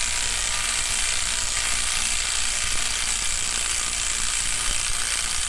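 Cordless impact wrench running continuously as it drives the forcing screw of a GM harmonic balancer puller, drawing the harmonic balancer off an LS1 V8's crankshaft.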